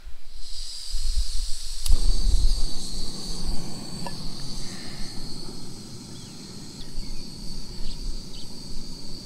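Backpacking propane canister stove lit with a single click about two seconds in, then its burner flame hissing steadily. A thin, steady high-pitched insect trill runs underneath.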